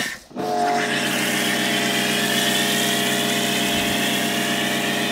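Pressure washer running steadily, its motor and pump humming under the hiss of a foam-cannon spray, the hiss shifting slowly in pitch as the lance moves along the car. All sound breaks off for a moment just after the start, then resumes unchanged.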